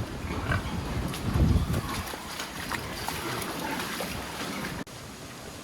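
Strong typhoon wind gusting and buffeting the microphone, with heavy low rumbles about half a second and a second and a half in; the noise drops suddenly near the end.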